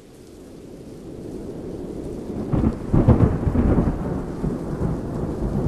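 Rain fading in, then a long rumble of thunder that begins about two and a half seconds in and peaks soon after, over continuing rain.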